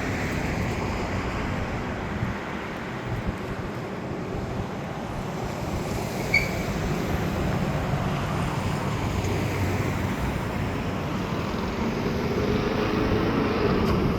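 Road traffic: a steady hum of vehicles going by, with one swelling louder toward the end. A single short high chirp sounds about six seconds in.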